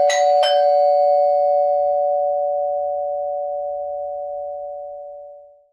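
Chime doorbell going ding-dong: two tone bars, a higher and a lower one, struck in quick succession, then both tones ring on and fade out over about five seconds.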